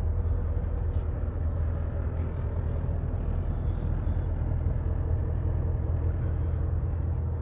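Mercedes-Benz O 404 coach's 380 hp diesel engine idling steadily, a low even rumble heard from inside the passenger cabin.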